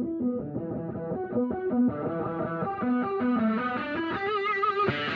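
Background music led by guitar: a run of picked notes, with one note held and wavering just before the end.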